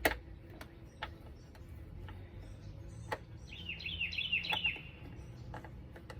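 A bird giving a quick run of short, falling chirps about halfway through, with scattered sharp clicks and taps around it, the loudest right at the start.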